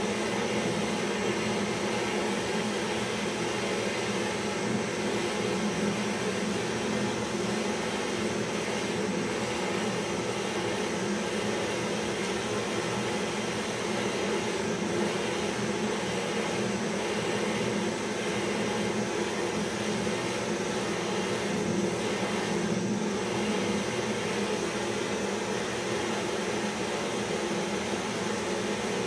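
Portable butane gas torch burning with a steady hiss, its flame heating the steel drum of a small traditional popcorn machine.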